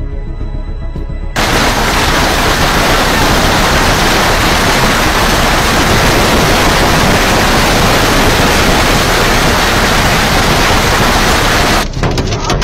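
Violent storm downpour: a loud, steady roar of heavy rain pounding down, starting abruptly after a moment of music. Near the end it gives way to a rapid clatter of sharp hits on a car windscreen.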